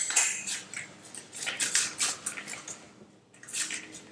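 Irregular metallic clicks and clinks of a ratchet and wrench being handled on the strap bolts of a rescue seat, in short bursts with small gaps between.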